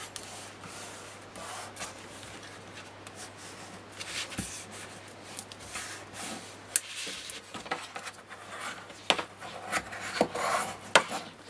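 Hands rubbing and smoothing glued card panels flat onto a book cover, then a bone folder pressing and scraping along the grooves between them. A few sharp taps come in the second half.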